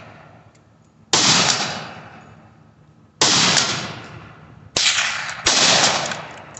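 Four gunshots, each a sharp crack that trails off over about a second: one about a second in, one about three seconds in, then two under a second apart near the end.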